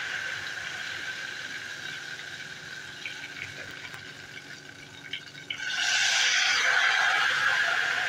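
Ghevar batter sizzling and frothing in hot fat in a deep pot. The sizzle slowly dies down, then rises sharply about two-thirds of the way in as another thin stream of batter is poured in.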